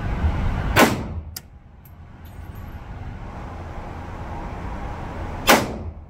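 Two handgun shots in an indoor range, one about a second in and another near the end, each a sharp crack with a short echoing tail, over a steady low rumble.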